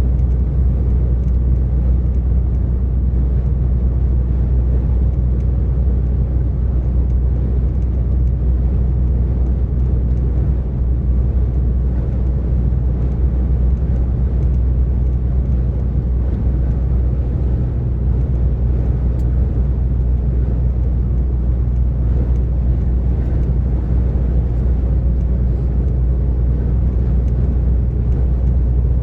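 DAF XF 460 lorry cruising at motorway speed: a steady low drone from its PACCAR MX-13 six-cylinder diesel, mixed with tyre and road noise.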